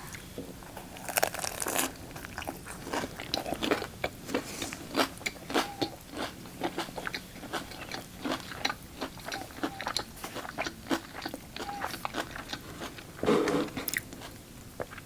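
Close-miked chewing of a chicken Caesar wrap with crisp lettuce: a steady run of irregular wet mouth clicks and crunches. A louder stretch comes near the end.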